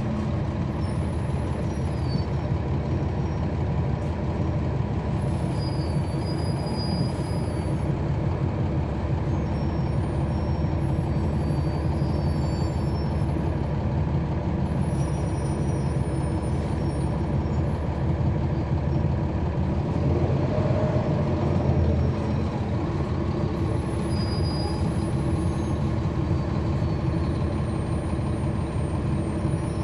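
Ride inside a 2011 NABI 40-foot transit bus: its Cummins ISL9 inline-six diesel running steadily, with faint high-pitched squeals coming and going. The drone swells a little for a couple of seconds about two-thirds of the way through.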